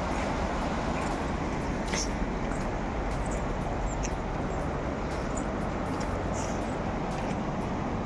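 Shallow rocky river rapids rushing, a steady, even wash of water noise.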